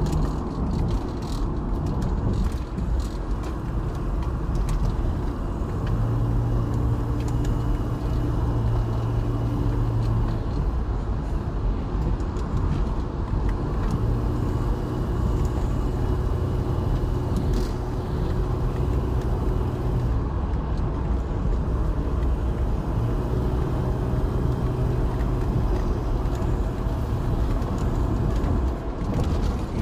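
Car interior noise while driving at road speed: steady road and engine rumble through the cabin, with a low steady hum that comes in three times for a few seconds each.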